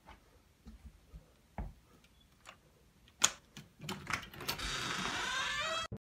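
A front door being opened by hand: a series of small clicks and knocks from the lock and latch, a sharper click about three seconds in, then a steady hiss for the last second and a half as the door swings open.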